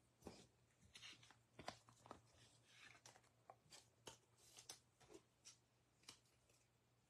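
Near silence, broken by faint clicks and soft rustles of trading cards being handled and set down, thinning out near the end.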